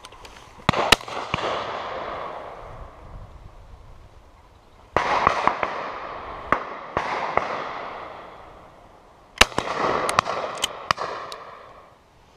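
Shotguns firing at driven pheasants: three spells of rapid shots from several guns, each shot trailing a long rolling echo that dies away over a second or two. The loudest reports come just before the first second and at about nine and a half seconds.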